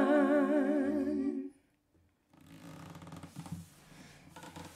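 Unaccompanied female voices in harmony holding the final sung note with vibrato, fading out about a second and a half in. After a moment of dead silence, faint room noise with a low hum follows.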